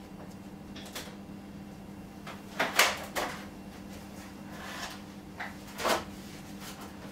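Heavy clunks and knocks of a 20 kg UPS battery pack being picked up and handled, loudest in a cluster about three seconds in and again about six seconds in, over a steady low hum.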